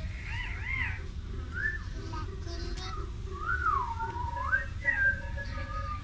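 Whistling in short gliding, wavering notes, with a longer whistle a little past halfway that slides down and then back up.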